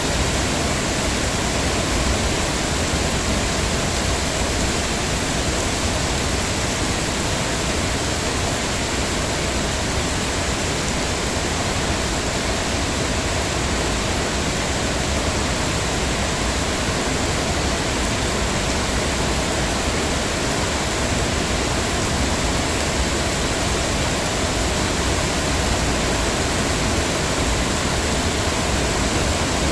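Heavy rain falling steadily, an even hiss with no breaks or single drops standing out.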